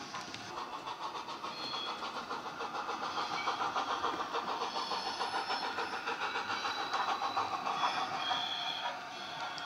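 Sound decoder in a Hornby A3 Flying Scotsman OO-gauge model playing steam locomotive exhaust through its tender speaker: a steady, rapid chuffing beat that grows louder and then eases near the end, with a few short high squeaks.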